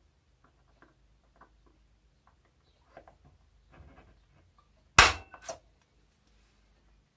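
Spring-loaded automatic centre punch firing against an aluminium weaver rail to mark a hole: one sharp metallic snap about five seconds in and a smaller one half a second later, after light clicks and scrapes of handling.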